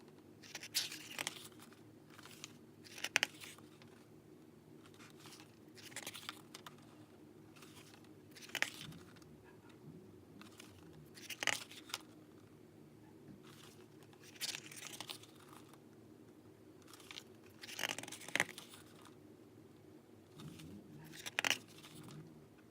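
Packaging crinkling and tearing in short bursts every couple of seconds as merchandise is unwrapped, over a faint steady low hum.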